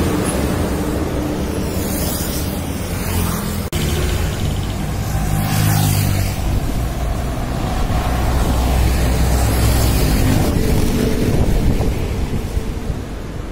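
Heavy diesel trucks and road traffic: a tractor unit hauling a container trailer pulls away, then, after an abrupt cut about four seconds in, a Hino 500 container truck runs along the highway with a deep engine rumble and tyre noise, and cars pass.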